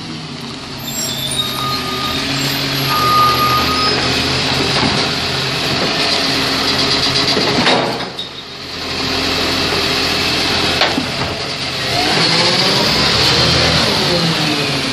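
Volvo side-loader garbage truck with a Superior Pak Raptor body running while its hydraulic arm whines, lifting and tipping a wheelie bin. About eight seconds in there is a sudden crash as the recyclables drop into the hopper. From about twelve seconds the engine rises in pitch as the truck pulls away.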